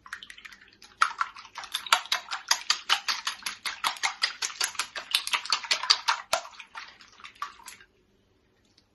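Eggs being beaten in a bowl: a utensil clicks quickly and evenly against the bowl for several seconds, stopping near the end.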